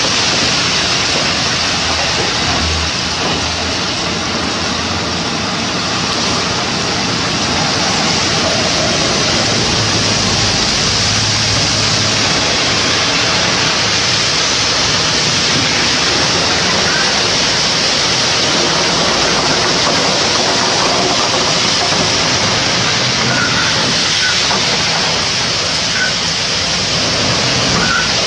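Loose bulk material sliding out of a tipped dump truck body in a steady, continuous rushing hiss.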